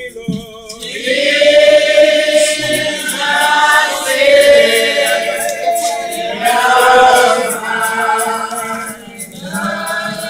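Church congregation singing a hymn together without instruments, in long held phrases with short breaths between them.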